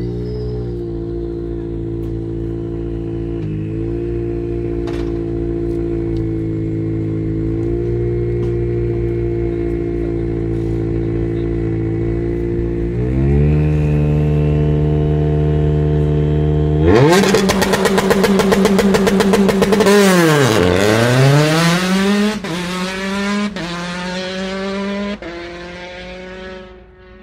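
Citroën DS3 R5 rally car's turbocharged four-cylinder engine idling steadily, its revs stepping up slightly along the way. About two-thirds of the way through it launches hard, revving high and climbing through several gear changes as it pulls away, fading near the end.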